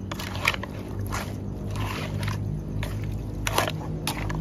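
A metal spatula scraping against a metal pot while tossing raw pork ribs and herbs, wet squishing strokes about every half second over a low steady hum.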